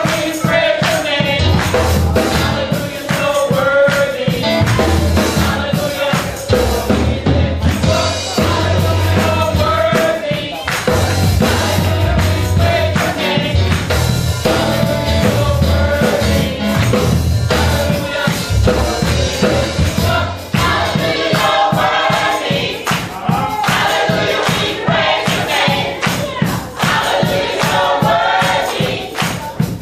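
Gospel choir singing, with a steady beat and low bass notes underneath.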